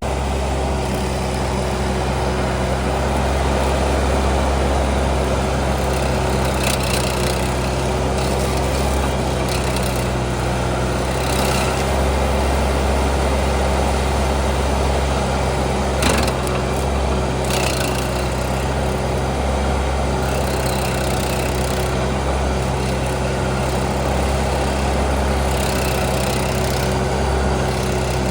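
Case TL100 mini skid steer's engine running steadily under load while its Toro hydraulic stump grinder cuts into a spruce stump, with a steady whine over the engine hum and a few sharp cracks as the teeth bite the wood.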